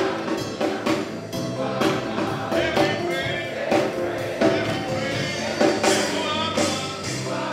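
Gospel song sung in church, a woman's voice carrying the melody over instrumental backing, with hand-clapping and sharp percussive beats through it.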